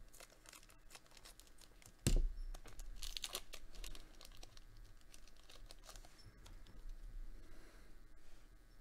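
Foil trading-card booster pack wrapper crinkling and crackling as it is cut open with scissors and the cards are slid out, with a loud sharp crackle about two seconds in.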